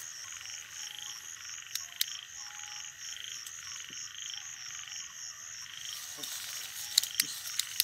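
Night chorus of frogs calling in a steady, fast, even pulsing. Near the end come a few sharp clicks and rustles from dry stalks as someone pushes through them.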